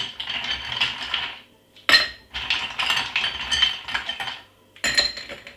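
Ice cubes rattling and clinking into a drinking glass, with two sharper ringing knocks of ice on glass, about two seconds and five seconds in.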